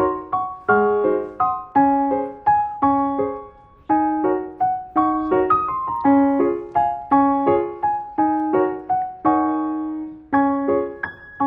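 Background music: a piano or electric-piano tune of struck chords and a melody, each note ringing and fading, at an easy steady pace.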